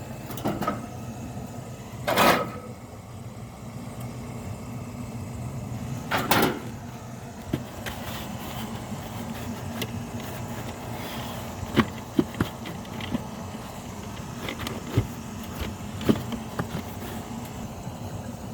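Handling noise over a steady low hum: two short loud rustling bursts a few seconds apart, then scattered clicks and knocks, with several sharp knocks close together about 12 s in.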